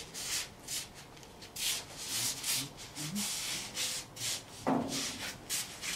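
Plush costume fabric swishing and costume slippers shuffling on the floor as the wearer walks, a rustle about twice a second.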